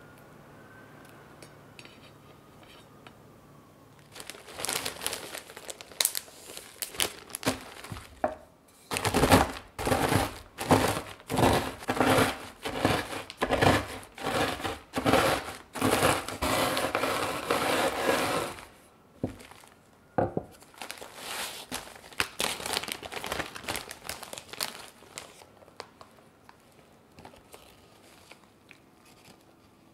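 Biscuits being crushed inside a plastic zip-top bag with a wooden rolling pin. The bag crinkles from about four seconds in, then a run of loud, regular crunching strokes comes about three every two seconds for some nine seconds, followed by softer crinkling of the bag.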